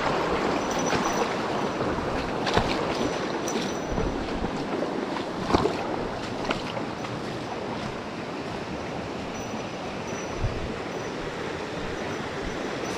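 Mountain stream water rushing steadily, with a few short sharp clicks in the first seven seconds.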